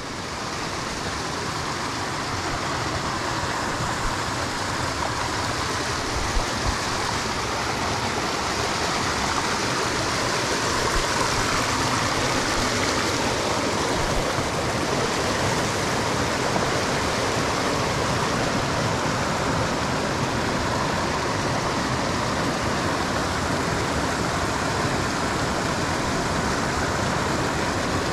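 Rushing water of a small creek waterfall, a steady hiss that grows louder over the first several seconds and then holds.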